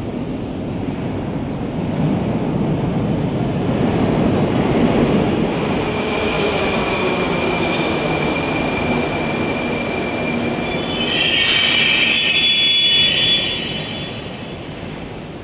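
Moscow Metro train running through the station: a rumble builds, then the wheels squeal with high steady tones for several seconds, with a short sharp burst near the end of the squeal, before the sound fades away.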